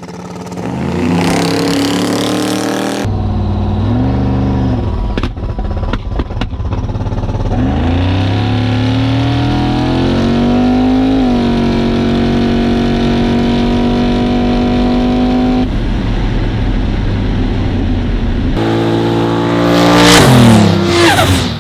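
Turbocharged drag cars, a twin-turbo LS V8 HR Holden and a 1JZ straight-six Foxbody Mustang, making a full-throttle run. The engine note climbs in pitch, then holds a steady high note from inside the HR Holden's cabin. Near the end the cars pass loudly, their pitch dropping sharply as they go by.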